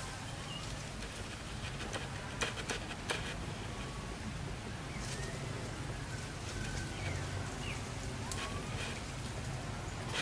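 Steady forest background with scattered sharp crackles and rustles from branches and leaves as macaques climb through a tree, and a few faint short chirping calls.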